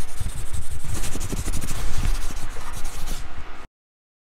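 Logo-reveal sound effect: a loud, scratchy rubbing noise over an uneven low rumble, cutting off suddenly into dead silence near the end.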